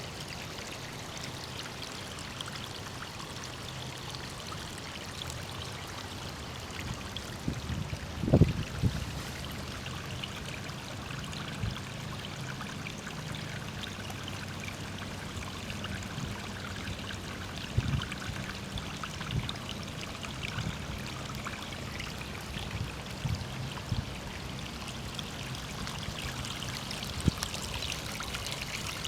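Water of a garden stream running and trickling over sandstone slabs, a steady splashing. A few dull low thumps come through, the loudest about eight seconds in and others near 18 and 27 seconds.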